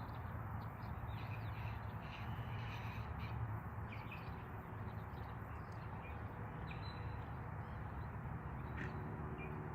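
Outdoor ambience: a steady low rumble with birds calling in short, scattered calls.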